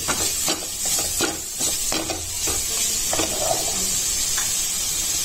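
Vegetables and spices sizzling in oil in a non-stick kadai, stirred and scraped with a plastic spatula: a steady sizzle under quick, irregular scraping strokes, most of them in the first half.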